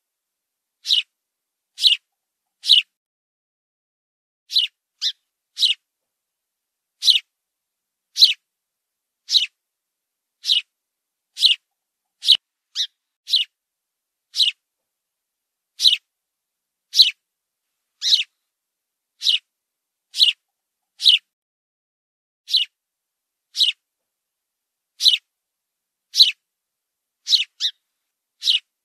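House sparrow chirping: single short, high cheeps repeated about once a second at an uneven pace, now and then two in quick succession, with silence between them.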